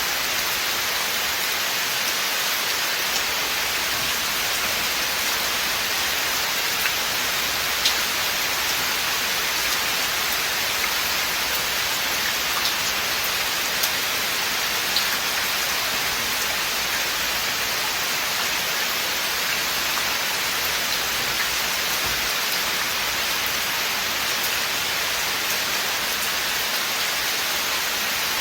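Steady rain falling in a forest, an even hiss with scattered individual drops ticking on leaves and surfaces.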